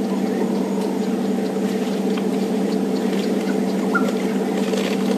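Game-drive vehicle's engine idling with a steady, even hum.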